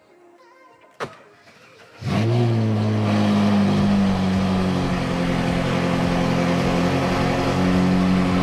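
Modified Ferrari 458 Italia's V8 with an aftermarket RYFT exhaust doing a cold start. A sharp click comes about a second in. About two seconds in the engine fires with a quick flare in pitch, then settles into a loud, steady high idle.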